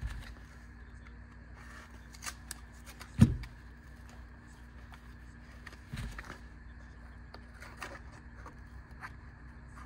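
Clicks and light handling noises from retail packaging being worked open by hand, with a loud knock about three seconds in and a softer one around six seconds, over a steady low hum.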